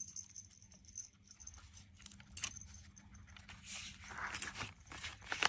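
Scattered soft clicks and brief rustling from a hand working a Ugreen silent-click wireless mouse.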